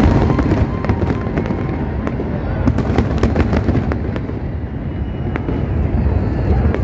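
Fireworks going off: a rapid run of sharp cracks and pops over a steady low din, the cracks thinning out in the second half.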